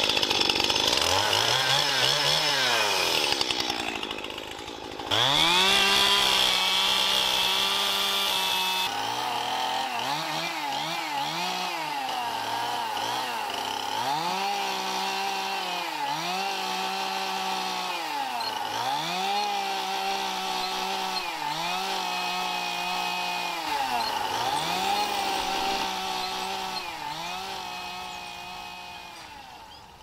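Two-stroke chainsaw revved again and again: each time the engine climbs to full throttle, holds there for a second or two and drops back, as it cuts cherry-wood logs into firewood lengths. It fades out near the end.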